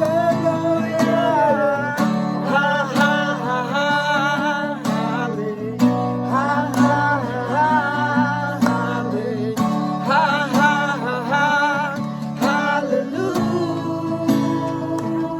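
Background music from a Nepali Christian devotional song: acoustic guitar chords under a wavering melody line, in a stretch with no sung words.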